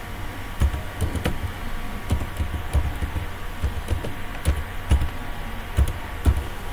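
Computer keyboard being typed at an uneven pace: about a dozen separate keystrokes, each a sharp click with a low thump, over a steady background hum.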